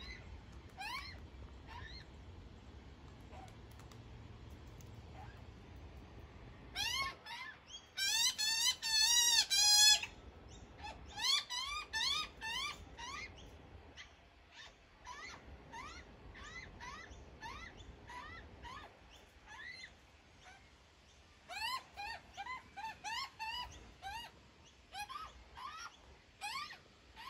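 Juvenile Australian magpie begging for food: short rising squawks repeated in bouts, loudest and fastest about eight to ten seconds in.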